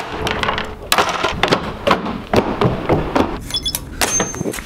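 Doors being worked: a metal lever handle clacking and the door knocking, amid a run of clicks and clunks from handling. Near the end a short high beep sounds as a card is held to an electronic cabin-door lock.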